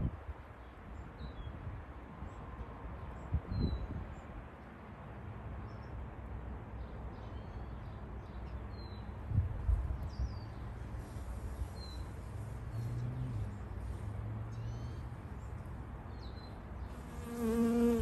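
Honeybee buzzing as it forages, a low steady hum that grows into a louder, clearer wing buzz near the end as the bee flies close. Faint bird chirps sound above it.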